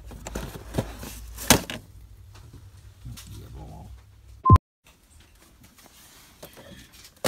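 Boxed Funko Pop figures being shifted on a shop shelf: scattered clicks and knocks of the cardboard-and-plastic boxes against each other and the shelf over a low hum, with one loud knock about a second and a half in. About four and a half seconds in there is a brief beep and a sharp click, and the sound then drops abruptly to a quieter background.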